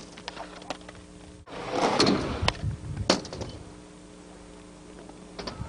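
Skateboard wheels rolling over concrete, swelling about one and a half seconds in, with several sharp clacks of the board and trucks. A faint steady hum runs underneath.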